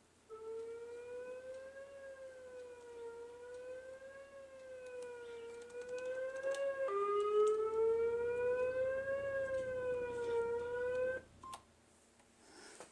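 Emergency warning siren, Afghanistan's civil-defence alarm, sounding a single wavering tone that rises and falls about every two seconds. About seven seconds in the pitch drops suddenly and the tone grows louder. It cuts off about eleven seconds in.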